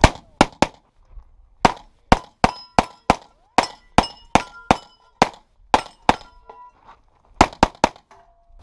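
Pistol fire: about twenty shots in quick strings, with short pauses about a second in and near the end. Many hits are followed by the clang of steel targets ringing. The stage ends with a fast burst of three shots.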